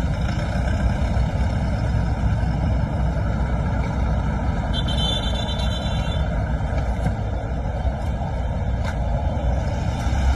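Steady low roar of road traffic, with no separate events standing out.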